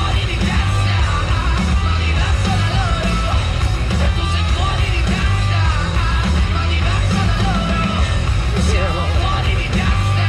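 Loud rock music with a heavy bass beat and a shouted vocal, played over a large sound system.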